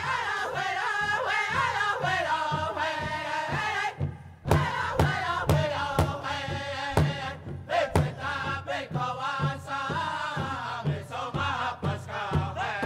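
Background music: chanted singing over a steady drum beat of about two strokes a second, with a brief break about four seconds in.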